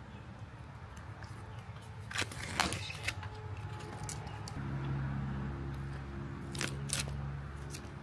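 Adhesive backer film being peeled off the back of a plastic emblem: sharp crackling rips about two seconds in and two more near the end. A low steady hum comes in about halfway through.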